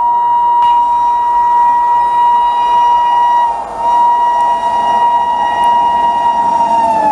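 WAP7 electric locomotive's horn sounding a long, steady blast, broken once briefly a little past halfway, as the train comes through at speed. Near the end the pitch drops as the locomotive passes.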